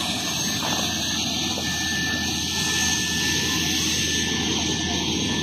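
Steady drone of a fixed-wing aircraft engine overhead, with a thin steady whine above the noise.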